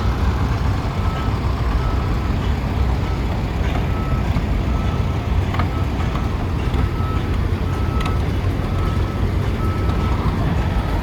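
Tractor engines running in a steady low rumble, with a short high beep repeating about once a second over it and a few sharp clicks.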